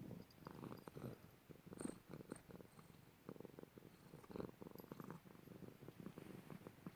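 A cat purring and snoring at once: a soft, low purr that comes in pulses, swelling and fading with its breaths.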